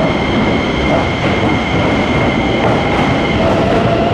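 Electric commuter train moving along a station platform: a loud, steady rumble of wheels and running gear with a high electric whine. About three seconds in, the high whine fades and a lower motor whine takes over, rising slightly in pitch.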